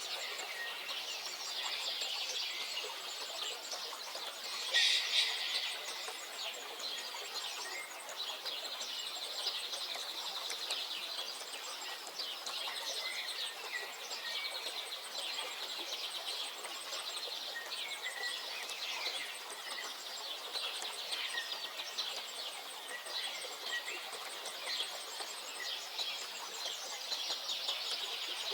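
Songbirds singing and calling together in a continuous chorus of chirps and trills, with a louder burst of calls about five seconds in.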